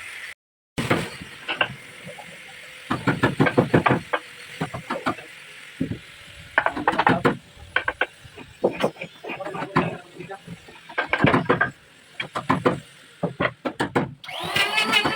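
Tools working hardwood: bursts of rapid sharp knocks and scrapes, each about a second long, with short pauses between.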